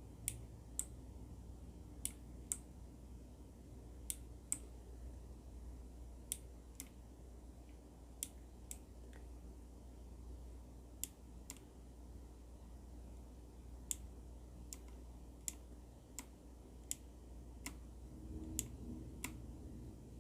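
Kailh Box White clicky switches on a mechanical keyboard, single keys pressed slowly one at a time: each key gives a crisp click going down and another coming up, pairs about half a second apart, repeated every two seconds or so.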